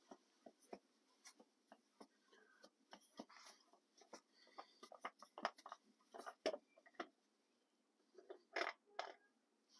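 Faint scattered clicks and light taps of a gloved hand working a hydraulic filter canister loose, with two short scuffs near the end.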